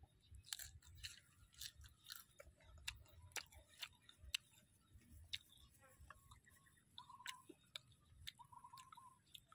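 Close-up chewing of crunchy raw green food dipped in chili sauce, with many small irregular crunches. A bird gives a short trilled call twice near the end.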